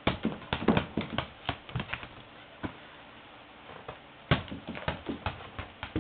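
Quick, irregular taps and clicks on a hard surface, in clusters with a lull of about a second and a half in the middle, from a pet rooster playing with a small ball.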